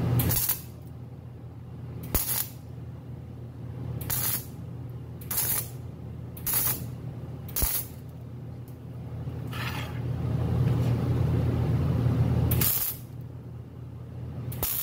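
MIG welder arc at about 200 amps and a high wire feed, depositing weld to fill a steel sprocket's bore: sharp crackling bursts every second or two over a steady low hum, then a longer, louder run of welding near the end.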